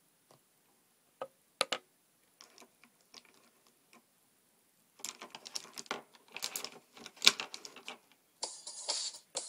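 Scattered light clicks and taps, then a rapid clatter of clicks for a few seconds. Background music starts near the end.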